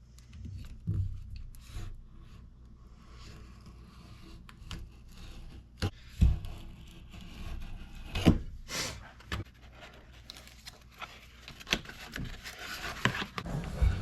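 Birch bark being worked by hand: scattered scraping and rustling with a few sharp taps and knocks, the loudest about six and eight seconds in.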